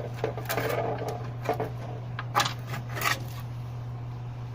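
Scattered clicks and light knocks of hard parts being handled, a few strong ones among smaller rattles, over a steady low hum.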